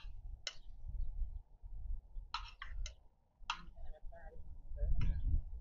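Serving spoon knocking and scraping against a metal cooking pan as curry is dished out: a handful of short sharp clicks, several close together a little past the middle, over a low rumble.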